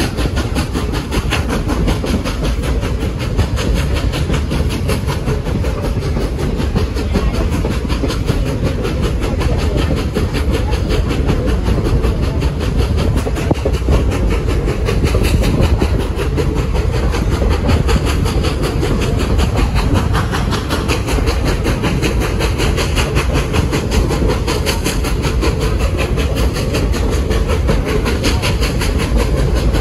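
Heritage excursion train running along the line: a steady rumble of rolling cars with the clickety-clack of wheels over the rail joints.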